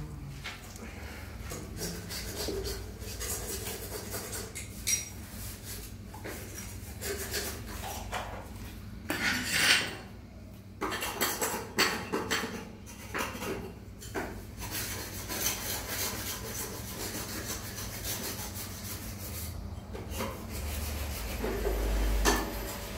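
Hard plastic PVC pipe fittings being handled and rubbed against each other and the gritty ground, giving irregular scrapes and light knocks; the loudest scrape comes near the middle, followed by a cluster of knocks.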